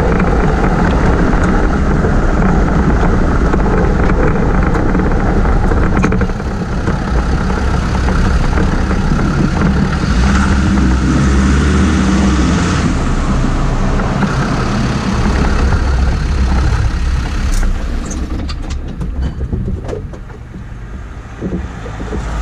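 Land Rover Discovery 2 on the move, heard from underneath at the rear axle: a loud, steady rumble of road, tyre and wind noise. It gets quieter after about 17 seconds, with scattered knocks and rattles from the running gear.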